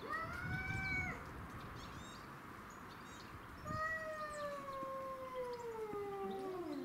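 Two domestic shorthair cats yowling at each other in an aggressive standoff before a fight. A short yowl of about a second comes at the start, then from about four seconds in a long, drawn-out yowl that slowly falls in pitch, with a second cat's yowl crossing it near the end.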